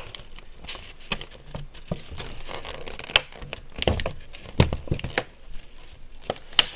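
Clear plastic blister packaging crinkling and clicking as a trading card is worked out of its moulded slot, with irregular sharp snaps and rustles.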